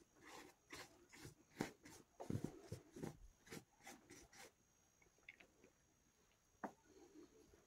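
Felt-tip marker scribbling back and forth across a cotton T-shirt, a run of short scratchy strokes about two a second that stops about four and a half seconds in, leaving near silence.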